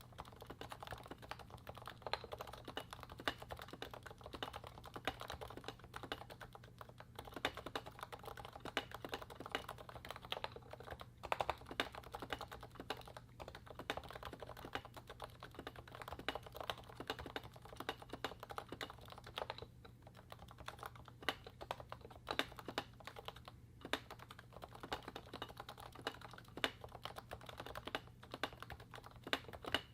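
Realforce 87U Topre keyboard, its 55g electrostatic capacitive switches fitted with Novatouch sliders lubed with Tribosys 3204 and capped with MT3-profile DEV/TTY PBT keycaps, typed on in a fast steady stream of keystrokes. The typing breaks off in a few short pauses.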